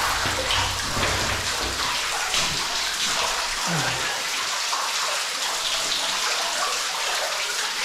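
A small flow of cave water splashing and trickling steadily as it spills over rock into a basin and runs on along the passage floor.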